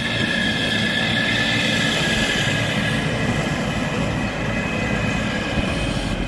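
Heavy machinery running: a steady rumble with a high, even whine over it.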